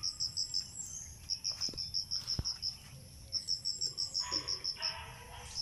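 Insect chirping: a high, evenly pulsed call at about seven pulses a second, in runs of about a second with short gaps between them.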